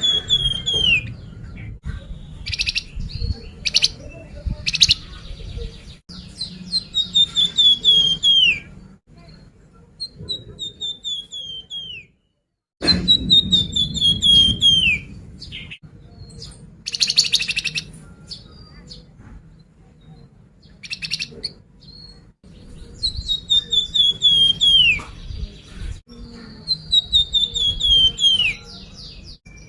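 Flamboyan songbird singing: repeated descending trilled phrases, each lasting a second or two, with bursts of short buzzy notes between them. The song breaks off in a brief silence about twelve seconds in, then resumes.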